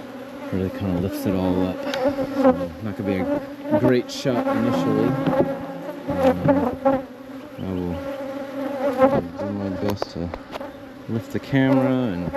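Honeybees buzzing close around the microphone at an opened hive. Individual bees fly past, their hum rising and falling in pitch as they come and go.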